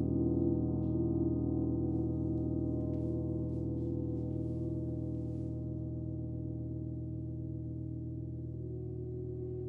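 Gong ringing on after a strike, many overlapping steady tones slowly fading, with one tone swelling a little near the end.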